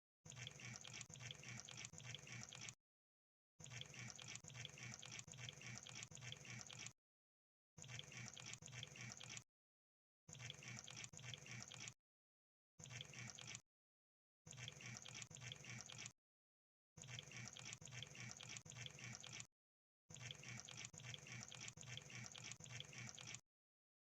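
Crab sound effect: faint, dense wet clicking and crackling in stretches of two to four seconds, broken by short dead-silent gaps.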